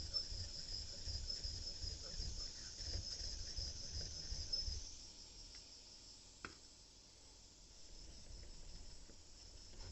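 A Japanese eel knife's blade stroked back and forth on a natural whetstone in a quick run of strokes that stops about five seconds in, followed by a single sharp click. Insects trill steadily and high-pitched in the background.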